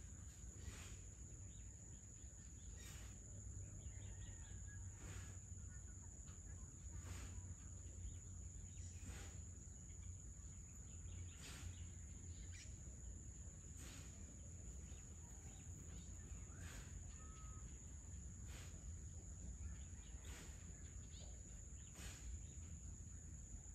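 Faint dusk ambience: a steady high-pitched insect drone over a low distant rumble, with a few faint bird calls and a soft tick about every two seconds.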